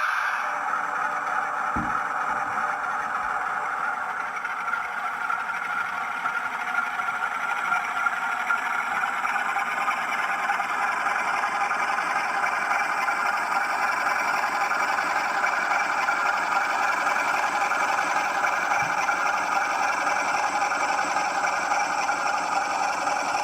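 A 00 gauge model locomotive's DCC sound decoder playing locomotive engine sound through its small speaker: a steady, thin running sound with little bass. A light knock about two seconds in, and another near the end.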